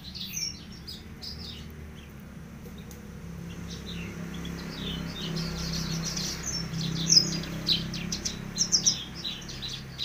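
Caged Horsfield's bush lark (branjangan) singing a fast, chattering run of high chirps and trills, which grows busier and louder in the second half. A low steady hum runs underneath.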